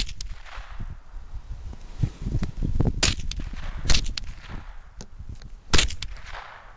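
Several .22 LR rifle shots spaced one to three seconds apart, each followed by a short echo.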